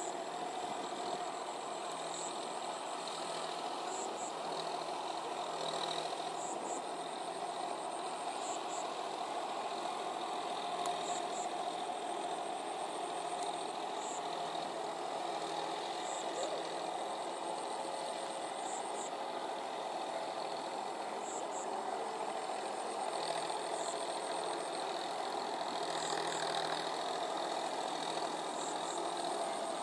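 John Deere 5045D tractor's three-cylinder diesel engine running steadily under load as the cage-wheeled tractor works through wet paddy mud.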